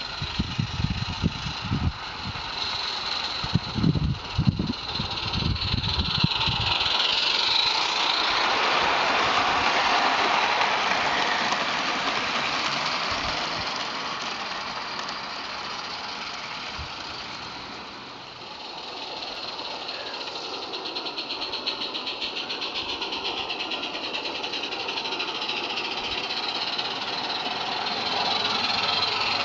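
Garden-scale model train running along its track, a steady clattering rumble. It swells as the train passes close about ten seconds in, fades, then grows again near the end.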